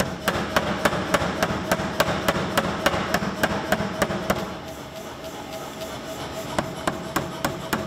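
Power hammer forging a red-hot carving-axe head: a fast, even run of blows, about three and a half a second, for roughly four seconds. After a short pause, a second run of lighter blows comes near the end.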